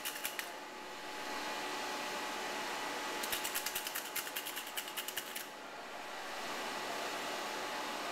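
A hand-held Zahm-Nagel SS-60 carbonation tester being shaken hard in rapid strokes, rattling at about eight clicks a second. The first bout stops about half a second in and a second runs from about three to five and a half seconds in, over a steady hum. The shaking brings the sealed beer sample's CO2 to equilibrium so its gauge shows a steady pressure reading.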